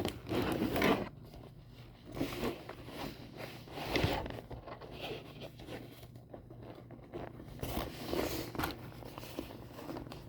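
A laptop bag being packed: its zipper pulled in several short strokes amid rustling and scraping of the bag's fabric.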